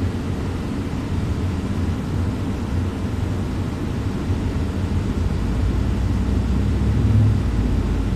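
Steady low rumble of a car heard from inside the cabin, growing a little louder past the middle.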